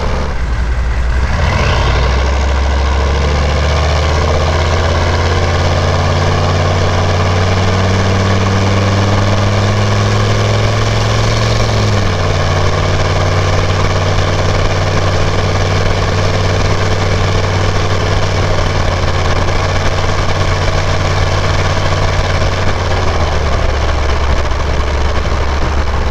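1996 Chevy K1500's 6.5-liter turbo-diesel V8 through a 4-inch straight-piped exhaust while driving: the engine note climbs steadily under acceleration, drops abruptly about halfway through at an upshift, holds steady, then falls lower near the end. Wind and road noise run underneath.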